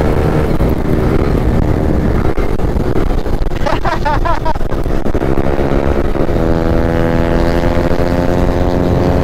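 Yamaha Aerox scooter's single-cylinder engine running at speed. Its note climbs from about halfway through as the scooter accelerates. A brief wavering high sound cuts through about four seconds in.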